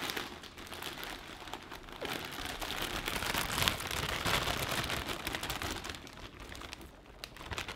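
Plastic bag crinkling and chopped collard greens rustling as the greens are shaken out of the bag and pressed down by hand into a pressure cooker's steel inner pot. A steady run of fine crackles, loudest in the middle and dying away near the end.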